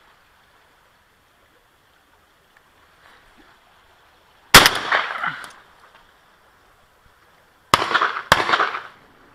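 Three shotgun shots: one about halfway through, then two in quick succession, about half a second apart, near the end, each trailing off in echo.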